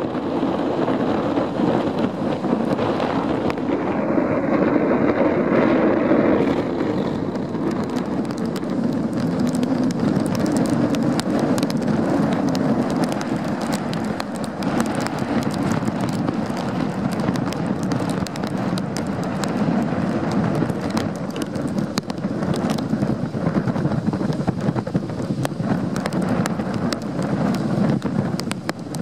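Strong wind buffeting the microphone in gusts, crackling, over a steady rush of storm-driven water.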